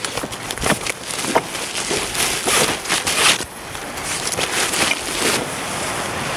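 Blue plastic tarp rustling and crinkling in irregular bursts as it is pulled out of its stuff sack. A steadier hiss takes over near the end.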